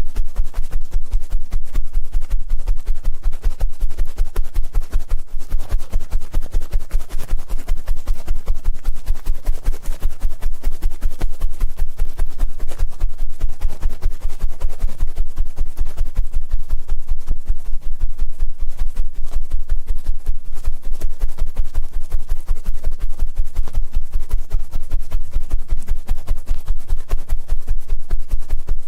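Ear-cleaning ASMR sounds: an ear pick scratching and rubbing close at the microphone in rapid, even strokes, several a second, with a heavy low rumble.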